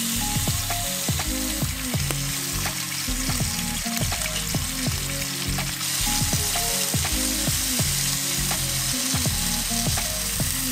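Bacon sizzling in a cast iron skillet, a steady frying hiss that grows a little brighter about halfway through.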